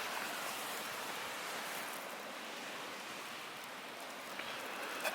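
A steady, even hiss that eases off slightly toward the end.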